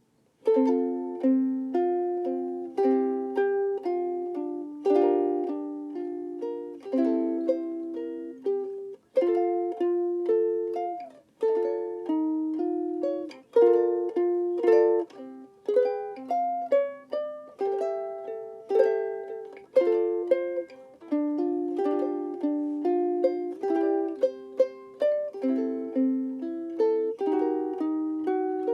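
A tkitki Style-0S17 UPT soprano ukulele, solid African mahogany body and top, played solo: plucked chords and melody notes starting about half a second in.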